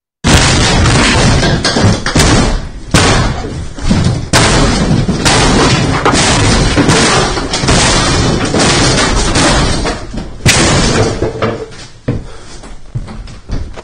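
Very loud, repeated banging and crashing of someone smashing things up in a house, heavy blows about once a second that grow weaker near the end.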